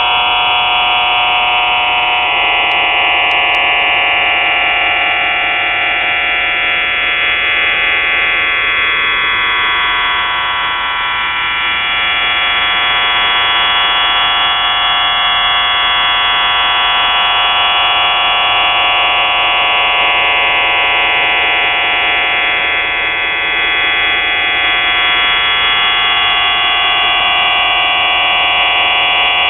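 Shortwave radio signal on 4632 kHz: a loud, steady buzz of many tones sounding together, with slower tones sliding down in pitch across it several times.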